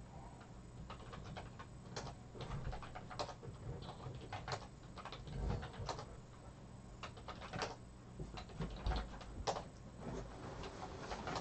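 Faint computer keyboard typing: scattered, irregular key clicks over a low steady hum.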